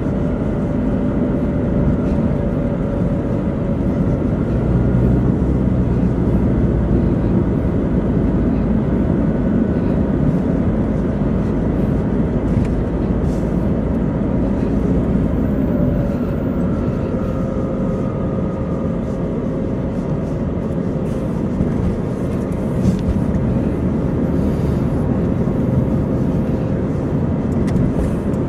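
A moving car heard from inside the cabin: steady engine and tyre road noise, with a faint whine that drops slightly in pitch past the middle.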